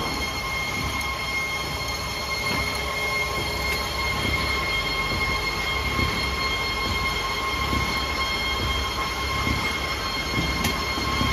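Quad-view belt-type cashew color sorter running: a steady mechanical hum with a steady high-pitched whine over it, and a few faint clicks.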